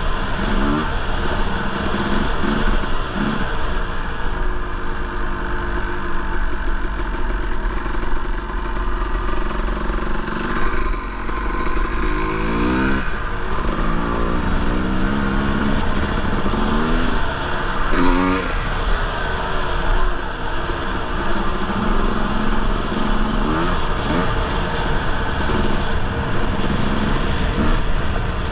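Honda CR250R two-stroke single-cylinder engine revving up and dropping back again and again as the bike is ridden, with a quick run of rising revs about twelve seconds in. A steady rush of wind runs underneath.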